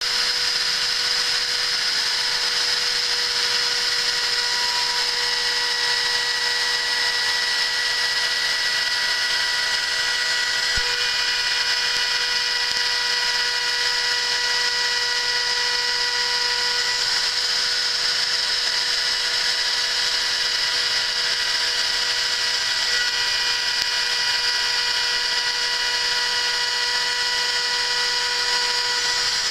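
CNC spindle driving a 6 mm two-flute HSS end mill, face-milling a 0.1 mm skim off a raw bronze block: a steady high-pitched whine, with the tones shifting slightly a couple of times as the cutter changes passes.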